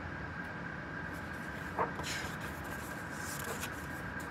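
Pages of a picture book being handled and turned: a light tap about two seconds in, followed by brief paper rustles, over a steady faint hiss with a thin high tone.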